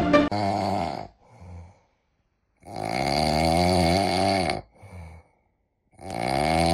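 Snoring in a slow cycle: long, drawn-out snores of wavering pitch about three seconds apart, with short, softer breaths between them.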